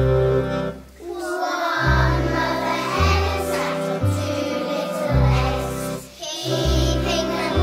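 A group of young children singing a song together over an instrumental accompaniment with a bass line that moves note by note, pausing briefly between phrases about a second in and again near the end.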